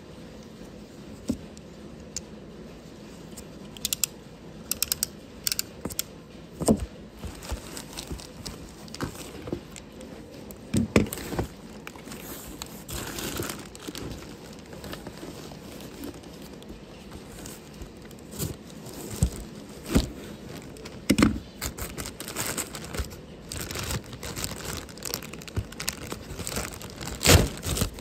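Black plastic mailer bag being handled and crinkled, with scattered sharp crackles and a few louder knocks as it is moved about.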